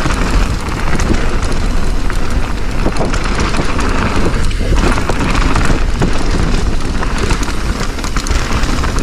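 Mountain bike riding fast down a dirt bike-park trail: wind rushing over the microphone, with a constant rattle of tyres, chain and frame over the bumps.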